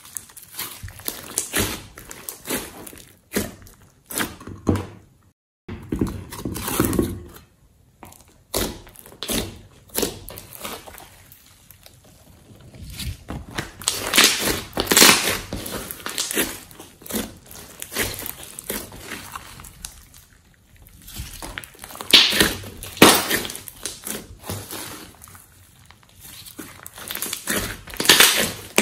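Hands squeezing, stretching and pressing glossy slime, making wet squelches and sharp clicks that come in irregular bursts of a few seconds with quieter gaps between.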